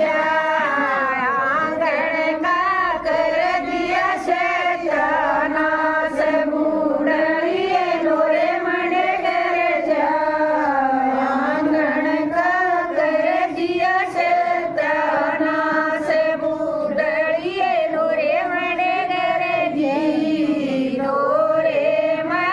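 Female voices singing a devotional bhajan, one continuous wavering melody line with no pauses.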